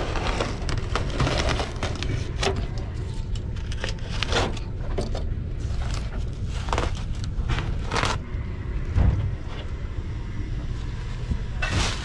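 Old foil-faced fiberglass duct insulation being torn and pulled off a sheet-metal duct by gloved hands: irregular crackling and rustling, with a steady low hum underneath.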